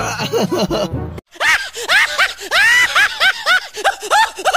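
A young child giggling briefly. Then, after a short break, a quick run of high-pitched, rising-and-falling cries, about three a second.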